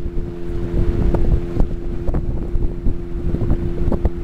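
Small motorboat's engine running at a steady speed under way, a constant low hum, with wind buffeting the microphone.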